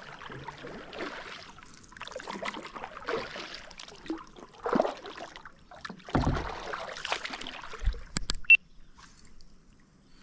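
Water splashing and gurgling in short, uneven bursts about once a second, with a couple of sharp clicks near the end.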